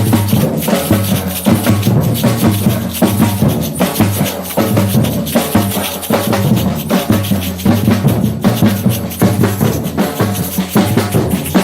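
Batucada percussion ensemble playing a dense, steady drum groove: deep bass drums under rapid, sharp higher strikes.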